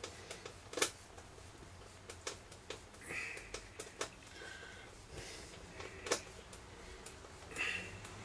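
Screwdriver tightening the screws that fix a record player's turntable mechanism to its motor board: faint scattered clicks and short scrapes, the sharpest click about six seconds in.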